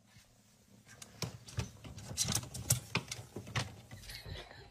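Cat rummaging among food packages on a refrigerator shelf: irregular light taps, clicks and rustling that begin about a second in.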